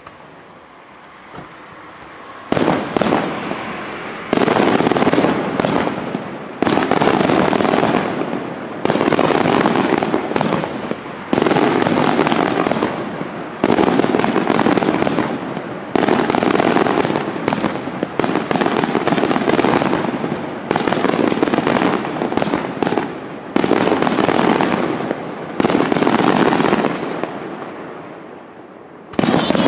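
Fireworks display: aerial shells going off in a steady series, one about every two seconds, each a sudden loud burst that trails off before the next. The bursts begin about two and a half seconds in, after a quieter stretch.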